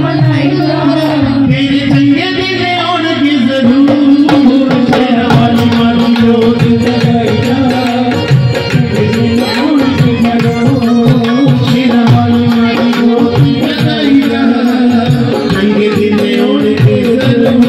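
Live devotional jagran music over a loudspeaker system: a male singer on microphone, with tabla-type drumming and the held notes of an accompanying instrument.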